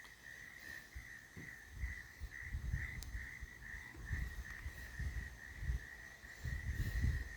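A steady, high-pitched chorus of calling animals trills on without a break. Low rumbling gusts of wind buffet the microphone from about a second and a half in, in a tropical storm.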